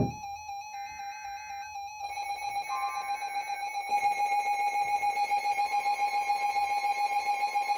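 Weather alert radio going off for a new alert: a click, then a shrill steady beep with the warbling two-tone data bursts of the SAME alert header sounding over it twice. The beep turns into a rapid pulsing alarm about four seconds in.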